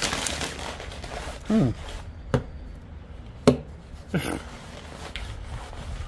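Sharp clicks and knocks of a Rocktrail Swiss-army-style pocket knife being handled and set on a wooden tabletop: three distinct clicks over a few seconds, the middle one loudest. A short wordless vocal 'hm' about one and a half seconds in.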